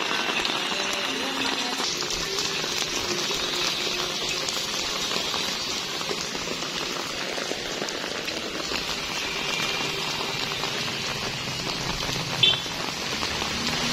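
Steady rain falling on a wet paved street and puddles, an even hiss of patter. A brief sharp high-pitched sound cuts in near the end.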